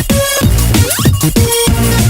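Electronic music with a driving beat and sliding synth notes.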